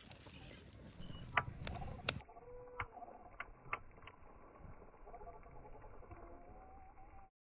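Wood fire burning in a portable stainless-steel fold-out fire pit, with scattered sharp crackling pops over a faint steady background; the sound changes abruptly about two seconds in and cuts off near the end.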